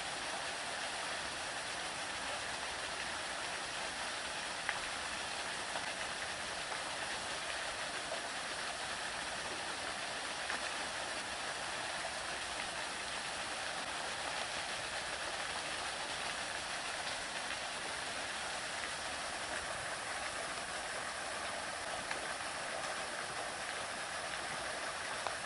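Steady, even rushing noise of water, with a few faint ticks.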